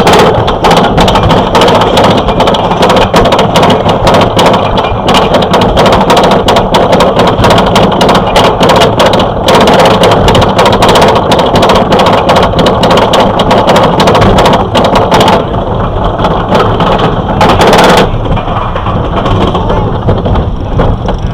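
Wind buffeting the microphone with the rattle and clatter of a wooden roller coaster train running along its track at speed. The noise eases somewhat in the last few seconds.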